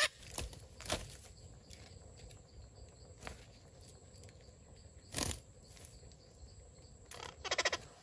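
Parakeets calling with short harsh squawks: two near the start, one a little past the middle, and a quick rattling run of calls near the end, the loudest of them.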